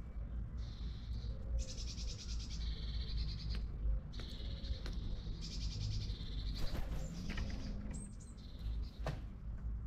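Birds calling in several bursts of rapid, high-pitched chirping, with a couple of sharp taps near the end, over a constant low rumble.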